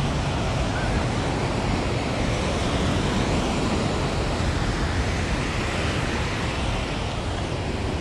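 Ocean surf washing onto the beach: a steady rush of noise, with wind on the microphone.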